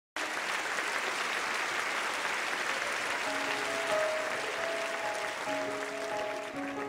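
Audience applauding, the clapping thinning out as slow music of held notes starts about three seconds in.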